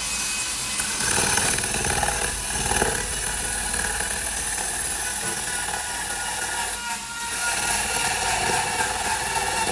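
Woodworking power tool running on wood, a steady motor whine over cutting noise, with a brief dip about seven seconds in.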